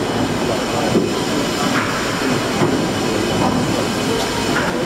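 Worthington-Simpson inverted vertical triple-expansion steam engine running slowly in steam: a steady mechanical rumble from its moving rods and crossheads, with a faint regular knock about once a second.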